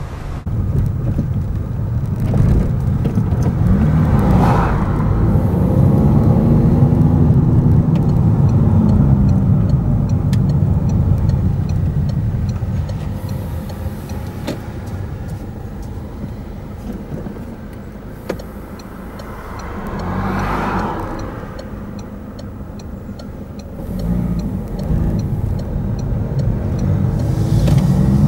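A car's engine and road noise heard from inside the cabin while driving, the engine note rising and falling several times as the car speeds up and eases off.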